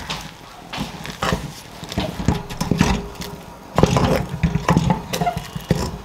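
Thick buckwheat dhido stirred and beaten with a wooden stick in a metal pot: irregular knocks and thuds of the stick against the pot wall and the stiff, sticky dough, louder from about four seconds in.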